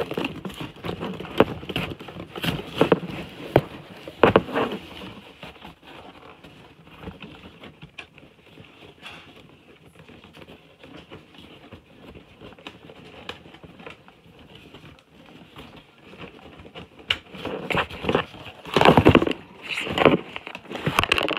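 Irregular rustling, crackling and clicks of toy packaging being handled and opened. It is busiest about the first four seconds and again near the end, quieter in between.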